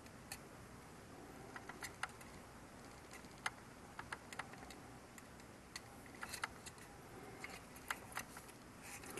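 Faint, irregular light clicks and ticks of plastic support pillars being pressed into a circuit board's mounting holes as the board is handled.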